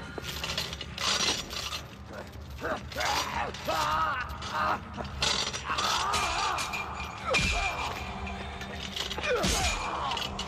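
Movie fight-scene soundtrack: repeated metallic clanks and rattles, with strained, pained cries rising and falling in pitch through the struggle.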